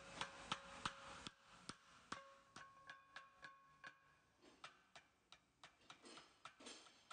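Light metal-on-metal taps, about three a second, as a soft-faced hammer knocks a key into the keyway of the Atlas Copco ZR132 compressor drive shaft. Some taps leave a short faint ring.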